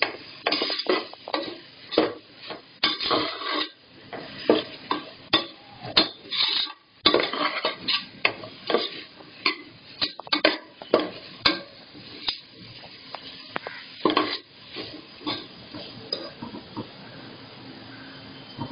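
Metal slotted spoon scraping and clinking against the sides of a pressure cooker pot, stirring vegetables frying in oil and ghee, with a light sizzle beneath. The strokes stop about fourteen seconds in, leaving only the sizzle.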